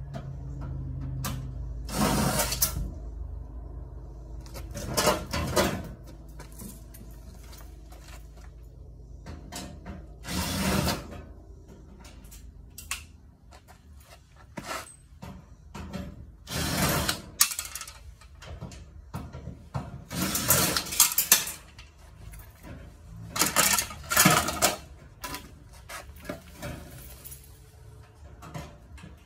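Irregular metallic clatters and clicks, about half a dozen loud ones with smaller knocks between, from tools and metal parts being handled while a washing machine is dismantled for scrap. A low hum fades out in the first few seconds.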